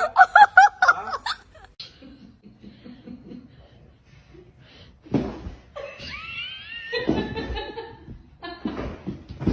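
A person laughing in a quick run of ha-ha pulses, which dies away after about a second and a half. About five seconds in, louder sounds return with a high rising squeal.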